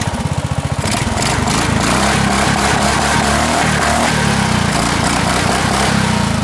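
Lawn mower engine running; about a second in it speeds up to a faster, louder, steady run, then drops back to a slower pulsing idle near the end.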